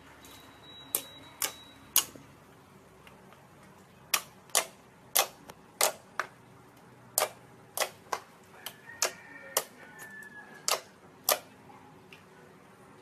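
A series of sharp, short clicks at uneven intervals, about seventeen in all, with a pause of about two seconds after the first three.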